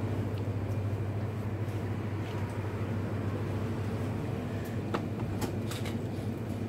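Steady low hum and background noise of a large shop's interior, with a few faint clicks about five seconds in.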